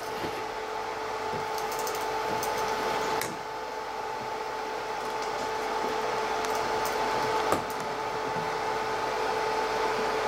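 A kitchen appliance fan whirring steadily with a humming tone, growing slightly louder over the stretch. A metal ladle clinks against the steel pot twice, about three seconds in and again about seven and a half seconds in.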